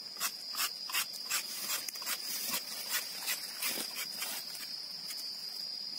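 Insects in a rubber plantation: a steady high-pitched whine with regular clicking chirps about three times a second.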